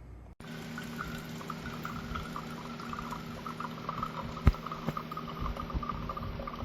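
Hamilton Beach FlexBrew Trio drip coffee maker brewing: hot water sputtering and gurgling in irregular spits over a steady hum. Two sharp knocks are heard around the middle.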